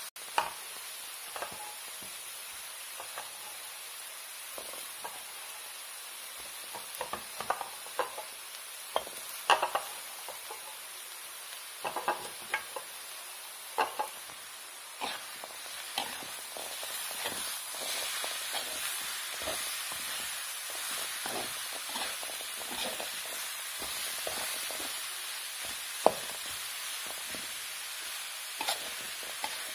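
Oncom and pea eggplants stir-frying in a pan: a steady sizzle, with the spatula scraping and knocking against the pan many times, one knock louder than the rest near the end.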